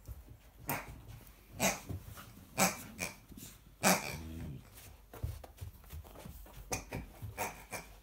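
American Akita puppy giving short sharp barks and growls during play, the loudest barks coming in the first four seconds.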